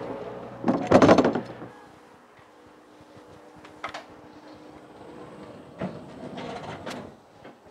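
Rear door of a truck's refrigerated box swung open, with a loud metallic clatter about a second in. Quieter clicks and short knocks follow.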